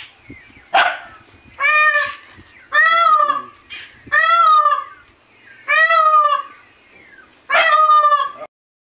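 A peafowl calling loudly: five drawn-out calls, each rising and falling, about a second and a half apart, with a shorter, rougher cry just before the first.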